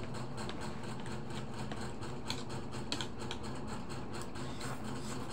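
Eating at a table: metal spoon and fork clicking against plates a few times, faint and sharp, about two to three seconds in, over a steady low hum.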